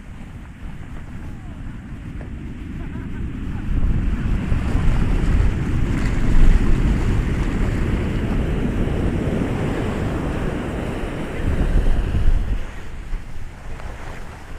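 Ocean surf: a wave builds and breaks about four seconds in, washes on, and subsides near the end, with wind rumbling on the microphone.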